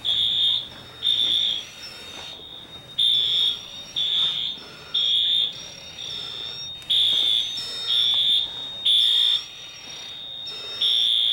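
Fire alarm sounding: a high-pitched electronic beep repeating about once a second, over a fainter steady tone at the same pitch.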